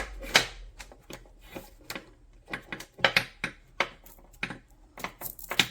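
Irregular clicks and knocks of hand handling as an electric nail drill handpiece and the strap around it are adjusted; the drill motor is not running.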